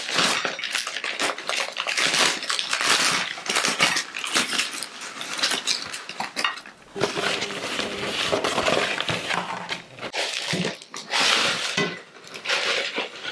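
Crispy fried chicken pieces tumbling out of a KFC paper bag and bucket onto a ceramic plate. The paper rustles and crinkles continuously, and the crunchy pieces knock and clatter against the plate.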